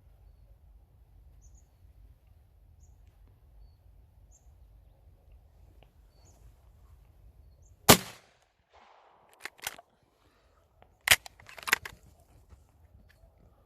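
Two loud gunshots about three seconds apart, the first a little past halfway and the second near the end, with lighter sharp clicks between and after them. Before the shots, only faint high bird chirps over a low background.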